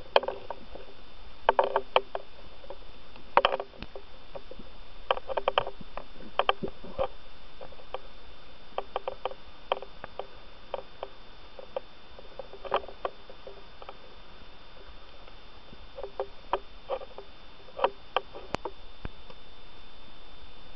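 Underwater recording through a camera's waterproof housing: scattered short clicks and knocks in irregular clusters from the housing and dive gear being handled, over a steady hiss with a faint high whine.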